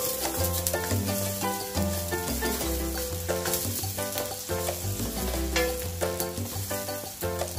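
Chopped onion sizzling in oil in a wok, stirred with a wooden spatula, over background music with a bass line and melody notes.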